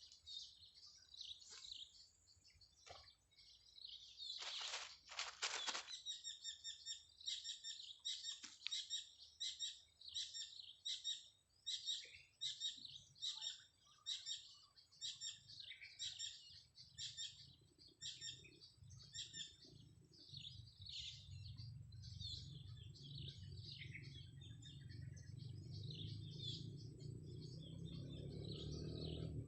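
Small birds chirping over and over in short, high calls, with a couple of brief louder noises about five seconds in. From about two-thirds of the way through, a low hum slowly grows louder.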